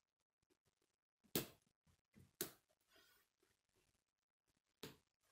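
Plastic K'nex pieces clicking together as they are handled and fitted onto a model, with a few sharp snaps among faint ticks. The loudest snap comes about a second and a half in.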